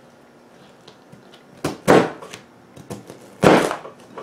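Chef's knife cutting through cabbage leaves onto a plastic cutting board: two loud crunching cuts about a second and a half apart, with a smaller cut and a few light taps between them.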